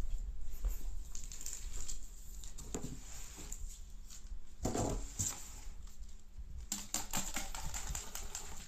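A kitten playing with a cardboard box and a crinkly teaser toy: light scratching, tapping and rustling, with a soft thump about five seconds in and a quick run of crinkling near the end.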